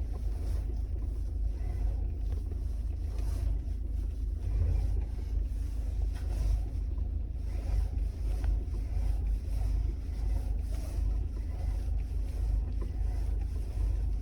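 Lada Vesta NG with a steady low rumble and a few faint, scattered knocks: the electric power steering knocking while the car stands still. The power steering is a warranty replacement that knocked again after about 500 km.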